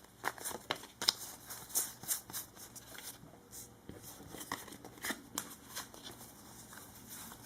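Yu-Gi-Oh trading cards being handled and sorted, with soft irregular clicks and rustles as the cards slide and tap against one another.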